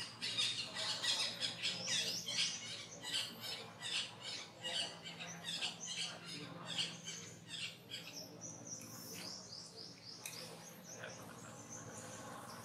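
A long-tailed macaque biting and chewing kernels off a raw corn cob: rapid, irregular crunching and crackling that thins out about two-thirds of the way through. Birds chirp in the background.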